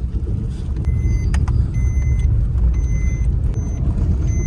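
A car driving, heard from inside the cabin: a steady low rumble of the moving car.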